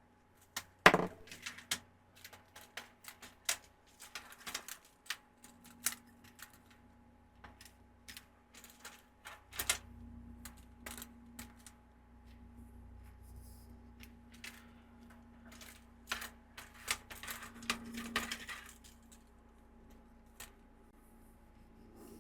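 Plastic LED icicle light tubes and their wiring clicking and clattering as they are handled and moved about on a workbench, with irregular sharp knocks, the loudest about a second in. A faint steady low hum runs underneath through the middle.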